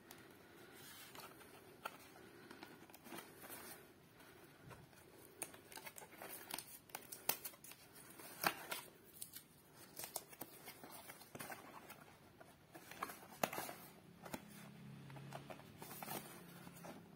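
Fingernails scratching at and peeling a paper seal sticker off a cardboard pizza box, with the box being handled: faint irregular scrapes, rustles and small ticks.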